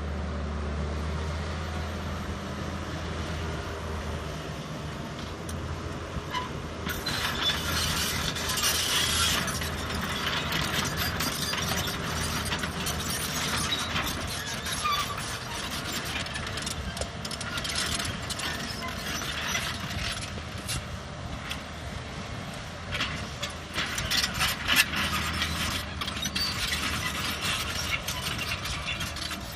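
Excavator at work: its diesel engine runs steadily, and from about seven seconds in a dense mechanical clattering of many quick clicks and knocks sets in and carries on.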